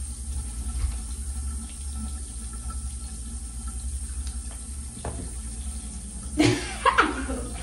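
Tap water running steadily into a bathroom sink, with a brief burst of a voice about six and a half seconds in.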